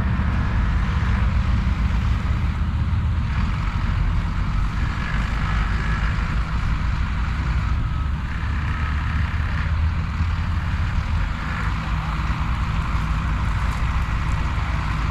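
A large engine running steadily, a deep rumble with a noisy hiss above it.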